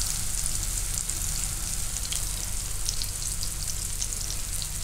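Wheat-flour handvo batter frying in hot oil in a nonstick kadai: a steady sizzle with light crackling from the tempered mustard and sesame seeds around its edges.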